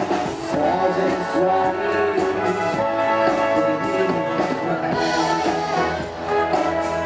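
Naval concert band playing live, brass-led, with sustained melody lines over regular percussion strokes.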